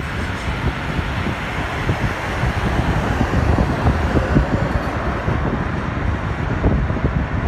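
Steady road and traffic noise heard from inside a moving car: engines and tyres running as a continuous low rumble, with no horns or single loud events.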